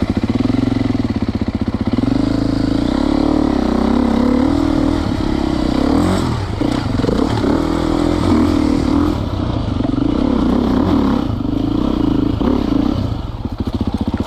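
Enduro dirt bike engine running at low trail speed, its revs rising and falling with the throttle several times.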